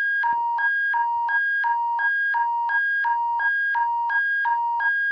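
Emergency alert attention tone, the one played as Alberta's: two electronic tones, one high and one low, taking turns about three times a second in an even, repeating warble.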